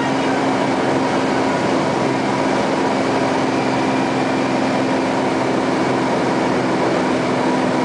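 Cessna TU206G's turbocharged six-cylinder engine and propeller at takeoff power, heard inside the cabin: a loud, steady drone with a steady hum over it.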